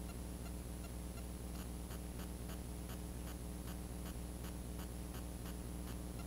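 Fishing reel being wound in to retrieve the lure, ticking fast and evenly at about four or five clicks a second, louder from about a second and a half in, over a steady low hum.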